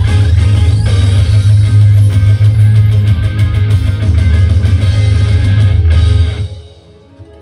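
Loud guitar-led music with a heavy bass line, fading out about six seconds in.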